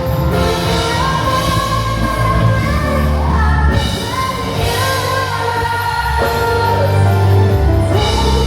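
A pop song sung by a vocalist over a full band, with steady bass and chords under a bending melody line.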